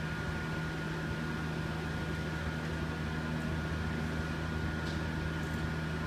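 Steady mechanical hum and hiss with a constant low drone and a thin, unchanging high whine, like fans or electrical equipment running.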